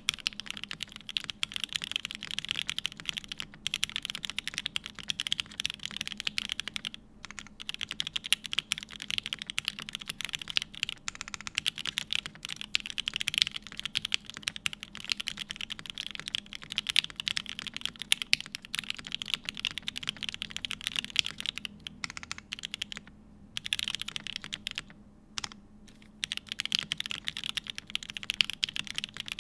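Continuous typing on a TGR 910ce mechanical keyboard with lubed and filmed H1 switches in a polycarbonate plate, under GMK doubleshot ABS keycaps: a dense, fast stream of key clacks, broken by a few brief pauses.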